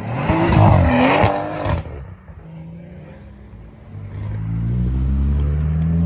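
Car engines: a loud burst of revving with a few sharp cracks in the first two seconds, then a car accelerating with its engine note climbing steadily from about four seconds in.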